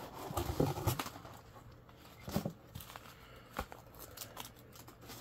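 Rustling and handling of packaging in a box, busiest in the first second, then a few scattered light clicks and knocks.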